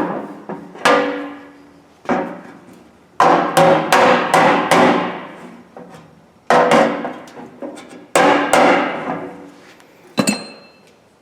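Auto-body hammer striking the thin sheet steel of an old Craftsman toolbox lid to work out dents: about a dozen sharp metallic blows in uneven clusters, each ringing on after the hit.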